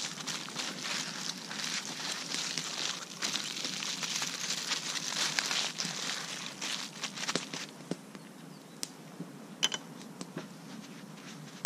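Aluminium foil crinkling and crackling as it is folded and pressed around a stuffed fish, dense for the first seven or so seconds, then quieter with a few separate clicks.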